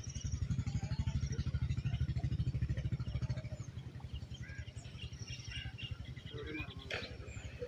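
A small engine running with a rapid low pulsing, loudest in the first few seconds and then fading away. Birds chirp throughout, and a brief click sounds near the end.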